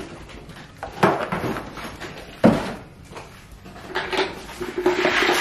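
Handling of a plastic jug and galvanized metal feed cans: a few sharp knocks, the loudest about two and a half seconds in, then a longer rustling scrape with a faint metallic ring near the end.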